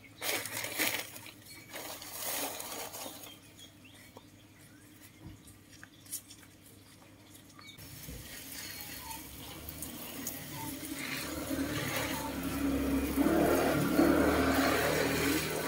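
Water poured or sprayed onto garden plants and soil, starting about halfway through and growing steadily louder. Brief rustling and handling knocks come in the first few seconds.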